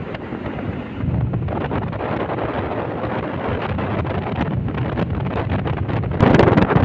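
Wind rushing over the microphone on a moving motorbike, with the bike running underneath. The rush grows louder about six seconds in.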